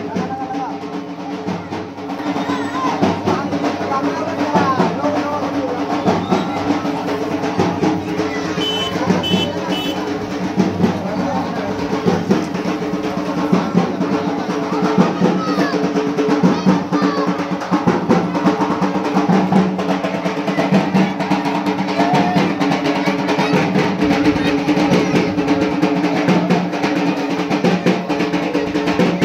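Rapid drumming with rolls, over a steady droning tone, with voices in the background.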